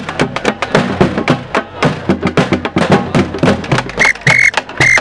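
Rhythmic percussion, rapid drum and wood-block-like knocks, with several short high-pitched tones about four seconds in and again near the end.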